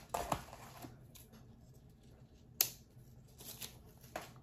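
Scissors cutting something off, with one sharp snip about two and a half seconds in and fainter clicks and rustles around it.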